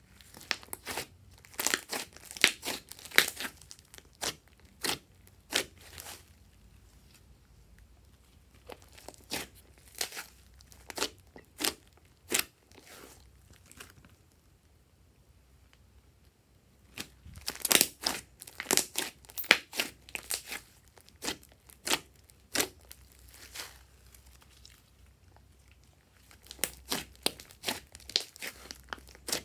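Glossy slime being squeezed and kneaded by hand, with trapped air popping out in quick clusters of sharp clicks and crackles and short pauses between the clusters.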